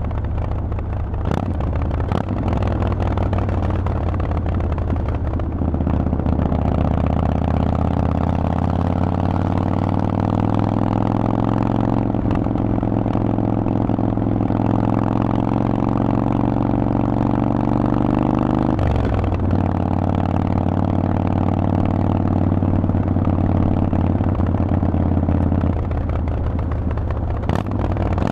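Harley-Davidson Forty-Eight's air-cooled 1200 cc V-twin running through a Vance & Hines aftermarket exhaust under way. The engine note rises a few seconds in and climbs slowly under throttle, drops abruptly about two-thirds of the way through, then holds again and falls off near the end.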